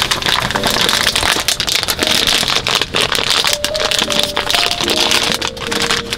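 Background music with steady held notes, over a loud, dense crackling noise made of many small clicks that cuts off suddenly just after the end.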